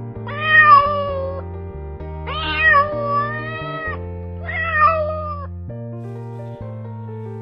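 Kitten meowing three times, each meow drawn out and bending in pitch, over background music.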